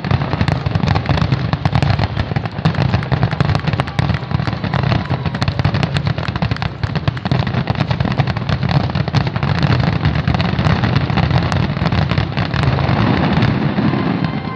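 Aerial fireworks finale barrage: shells bursting in rapid, overlapping succession, a dense run of sharp bangs and deep booms with no pause.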